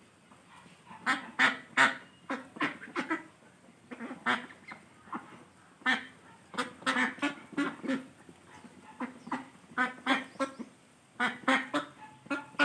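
A bird calling in short, harsh calls that come in quick runs of several, with brief pauses between the runs.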